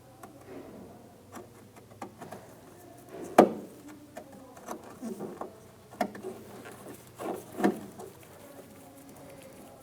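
Scattered clicks and light knocks of a Torx driver working screws out of a door trim panel, with the loudest knock about three and a half seconds in and two more sharp ones later.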